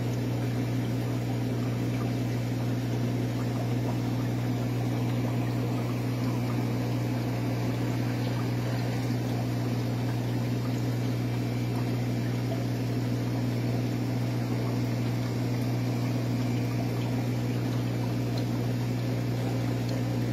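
Aquarium pump humming steadily, with a low mains-type drone, over the constant wash of circulating tank water.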